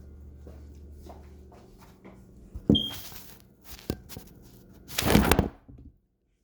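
Kitchen handling sounds: a low steady hum stops, then knocks and clatter follow, a short high beep about three seconds in, and a brief loud rustling scrape near the end.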